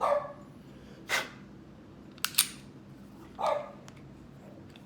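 A dog barking: four short barks, about a second apart.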